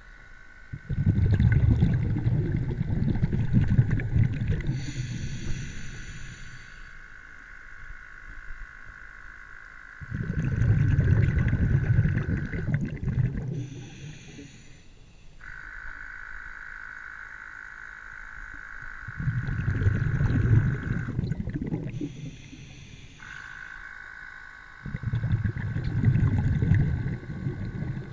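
Muffled low rumbling of water moving against an underwater camera, coming in four surges of a few seconds each, with a faint steady high whine between them that stops and starts.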